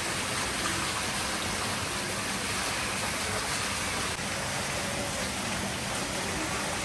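Steady rush of running water, even and unbroken, with faint murmuring voices in the background.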